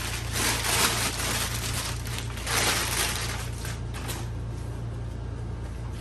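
Packing paper and cardboard boxes rustling and crinkling as they are handled and searched through, in two louder spells in the first half, then quieter handling, over a steady low electrical hum.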